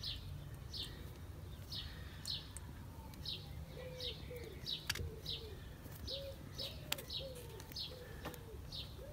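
Birds calling: a small bird chirps repeatedly, about twice a second, in short falling high notes. From about four seconds in, a pigeon joins with low, repeated cooing notes. A few sharp clicks come from hands working a rubber leak-off hose onto the injector nipples.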